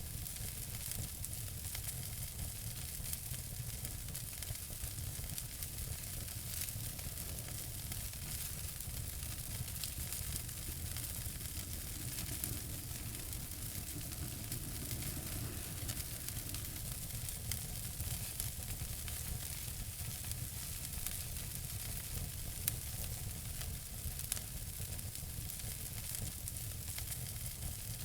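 Wood fire burning in a fireplace: a steady hiss and low rumble with frequent small crackles and pops, a couple of sharper pops in the second half.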